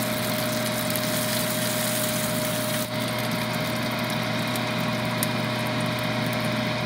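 Countertop rotisserie oven running: a steady mechanical hum from its fan and spit motor, with a constant tone over it.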